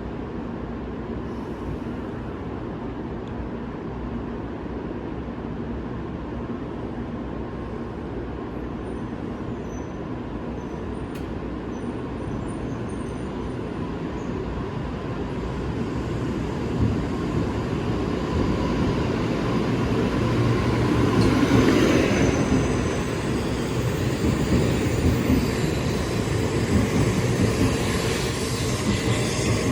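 Sanyo Shinkansen N700A train pulling out of a station: a steady low rumble that swells from about halfway through as the train gathers speed, loudest a little past the middle.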